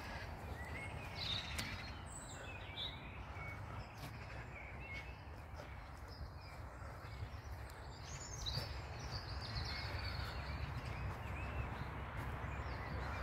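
Small birds chirping and singing in short phrases, strongest in the first few seconds and again past the middle, over a steady low rumble.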